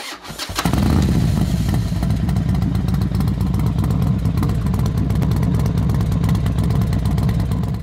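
Harley-Davidson Dyna V-twin motorcycle engine running loudly and steadily, coming in about half a second in.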